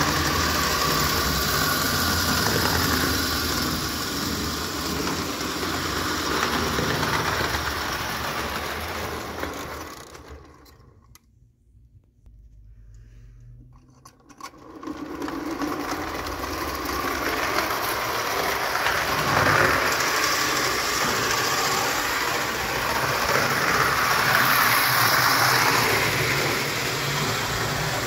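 Märklin "Storchenbein" 0 gauge tinplate locomotive and coaches running on metal track, a steady mechanical whirring and rattling. It dies away almost to silence for about four seconds near the middle, then starts up again.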